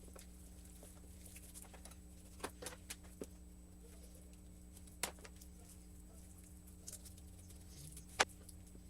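Faint scattered clicks and taps of a knife against a cutting board and bone as chicken thighs are deboned, over a low steady hum; the sharpest click comes near the end.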